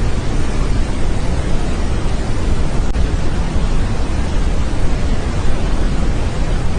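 Steady, even rushing noise, strongest in a low rumble, with no distinct events or tones: a 'sound of the solar system' space-sound track.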